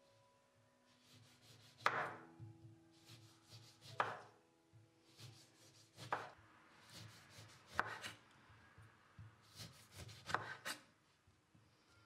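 Kitchen knife slicing an orange on a wooden cutting board: the blade cuts through the peel and knocks the board about every two seconds, with softer scraping between strokes.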